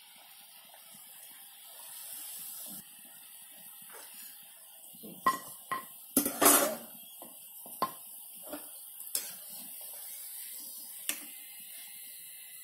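Mathri deep-frying in a kadhai of oil with a steady faint sizzle, while a perforated metal ladle scoops the fried pieces out. The ladle clinks sharply against the kadhai several times, most often in the middle.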